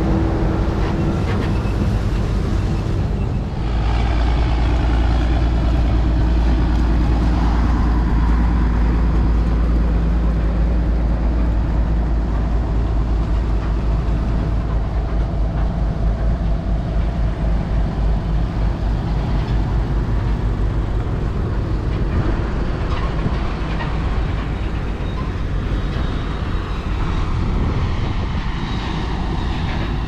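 Farm tractors' diesel engines running as they pull silage wagons through a harvested corn field, a steady low drone that grows louder about three and a half seconds in.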